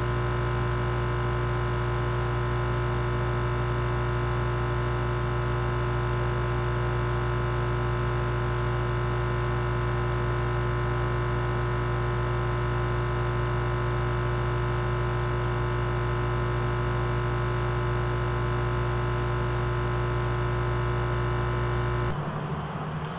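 Electronic synthesizer drone with a short falling chirp repeating about every three and a half seconds; it cuts off abruptly near the end.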